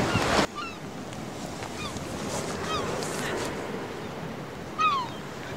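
Steady wind and surf noise from the sea, with short falling bird calls several times, the loudest near the end.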